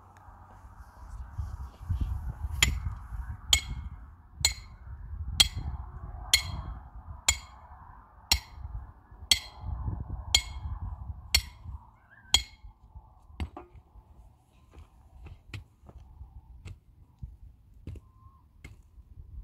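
Hammer blows, about eleven in a steady rhythm of roughly one a second, each with a bright ring, then lighter, scattered taps.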